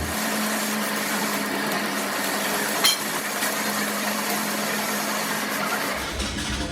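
A workshop machine running steadily with a constant hum and hiss, and one sharp click about three seconds in.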